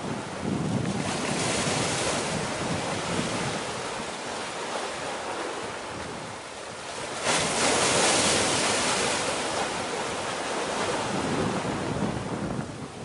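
Wind buffeting the microphone in gusts over a steady rush of open sea, the strongest gust about seven seconds in.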